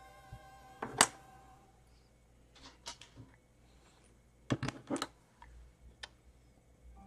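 Plastic LEGO pieces clicking and knocking on a wooden tabletop as they are handled and set down: one sharp knock about a second in, then small clusters of clicks around three and five seconds.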